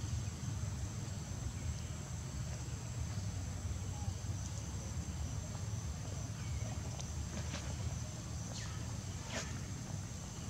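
Steady high-pitched insect drone of crickets or cicadas over a low rumble, with a few faint short chirps in the second half.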